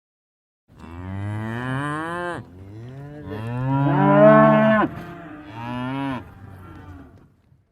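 A cow mooing: three long moos in a row, the middle one the loudest, each dropping in pitch at its end.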